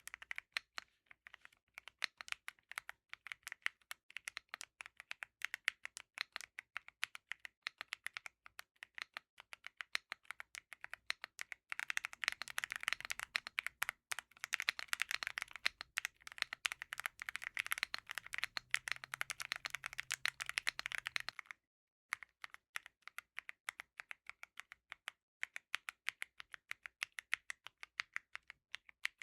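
Typing on an Epomaker Tide65 aluminium mechanical keyboard, stock with no foam, fitted with a mix of Gateron Jade, MMD Princess and Gateron Oil King switches under SA-profile keycaps. Keys clack one at a time at a slow, uneven pace, then come fast and dense for about ten seconds from the middle on, then slow again.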